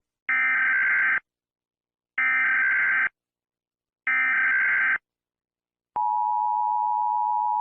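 Emergency Alert System alert tones: three bursts of the SAME digital header, each just under a second long, then the steady two-tone attention signal begins about six seconds in.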